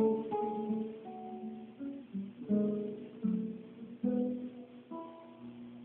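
Acoustic guitar playing a slow melody of single plucked notes, each ringing out before the next, with the notes spacing out and growing quieter near the end.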